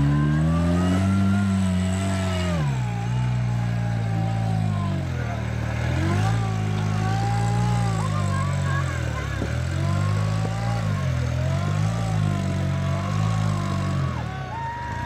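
Rock crawler buggy's engine revving in repeated bursts, pitch rising and falling with the throttle as it climbs a sandstone ledge. The first rise comes about a second in and drops off sharply near three seconds, then shorter blips follow.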